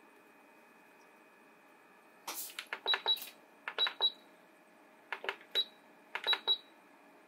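Asakuki essential oil diffuser's control button pressed repeatedly in four quick groups from about two seconds in, each press a sharp click and most answered by a short high beep. This is the Light button cycling the LED mood-light colours. Under it runs the diffuser's faint steady hum.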